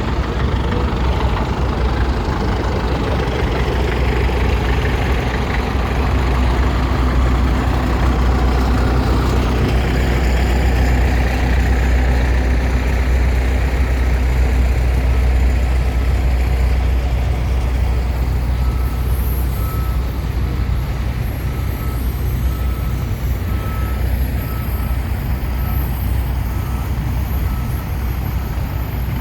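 Tractor engines running with a steady low rumble as tractors pass in a parade. In the second half a faint beeping repeats about once a second.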